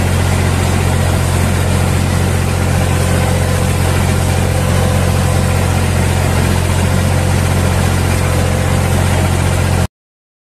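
Tractor engine running steadily while pulling a plough through the soil, heard from on the tractor. The sound cuts off suddenly near the end.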